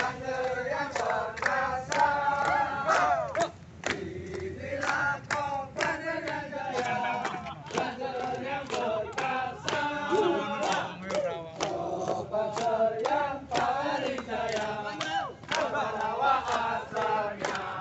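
A crowd of men chanting and singing together. Sharp beats about twice a second keep time.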